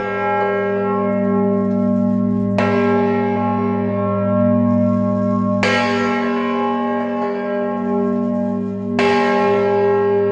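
A large church bell tolling slowly: three strokes about three seconds apart, each ringing on into the next over a deep steady hum.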